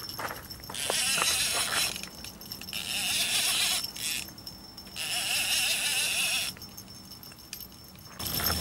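A fishing reel buzzes in three bursts of about a second each, with short pauses between, while a hooked wels catfish is played on a heavily bent rod.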